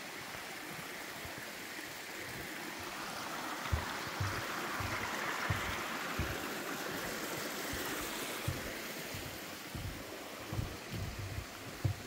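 Small woodland stream rushing over rocks, swelling louder in the middle and then falling back. Irregular low thuds of footsteps begin about four seconds in.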